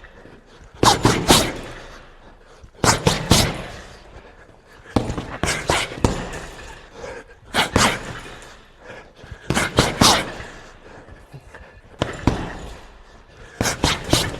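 Punches landing on a heavy punching bag: short combinations of two or three hits about every two seconds, each a sharp thud.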